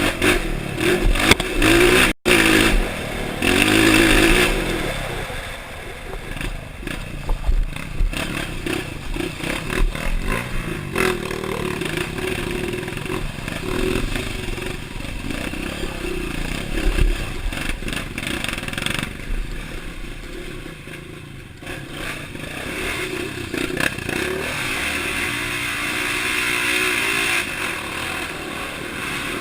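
Honda CRF dirt bike engine running under a rider, revving up and down with a deep, throaty note, with clattering and scraping from riding over rough ground.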